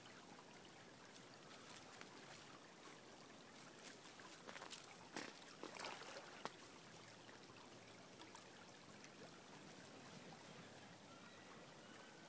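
Faint, steady rush of a small stream, with a few brief clicks about five to six seconds in.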